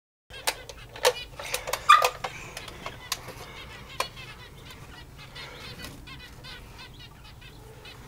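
A flock of small aviary finches chattering in many short, quick chirps, busiest and loudest in the first couple of seconds, mixed with sharp clicks.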